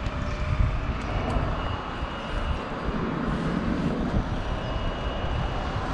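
Motorcycle engine idling with a steady low rumble, mixed with the rumble of motorway toll-plaza traffic.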